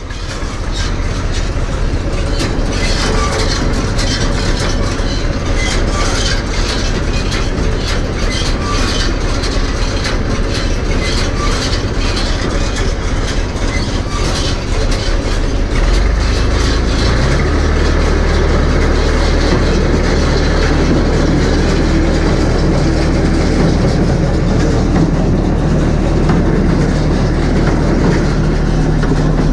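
Massey Ferguson 254S tractor running with the Welger WSA 350 small-bale baler hitched behind it, a steady engine note under dense mechanical clatter. About sixteen seconds in, the engine note gets louder and steps up in pitch.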